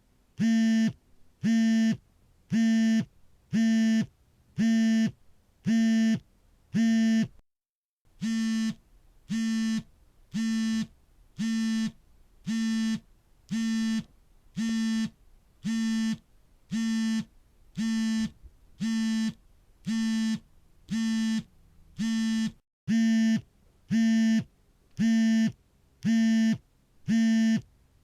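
Smartphone vibrating on an incoming call: its vibration motor buzzes in short, evenly spaced pulses, about three every two seconds. The rhythm breaks briefly twice.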